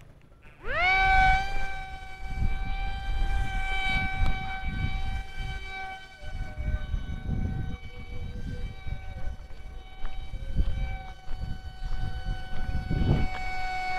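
Foam toy glider's small brushed electric motor and propeller spinning up with a quickly rising whine about half a second in, then running at a steady high-pitched whine.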